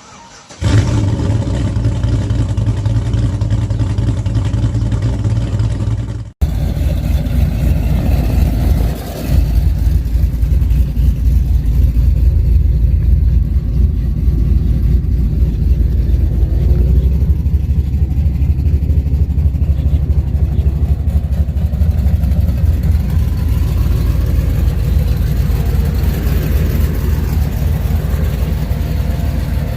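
A V8 truck engine and exhaust running. There is a sudden break about six seconds in, then a steady, heavy low rumble continues.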